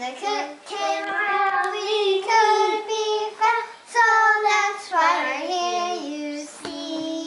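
Young girls singing a song together without accompaniment, in held, sung notes.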